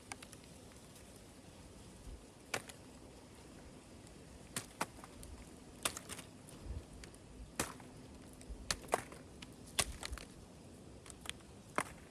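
Irregular sharp cracks and snaps of cornstalk residue and husks being stepped on and handled while walking a harvested cornfield, with a few soft low thumps in the middle.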